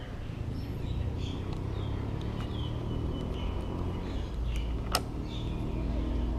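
Steady low rumble of distant road traffic with birds chirping, and a single sharp click about five seconds in as the mirror is handled.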